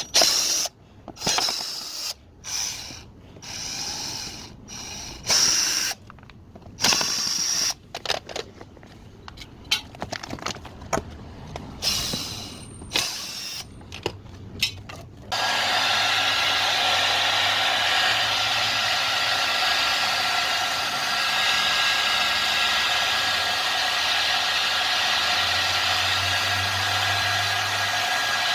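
Hair dryer blowing hot air into the freezer fan housing to melt ice that keeps the fan from seating, switched on in short bursts with clicks at first, then running steadily from about halfway.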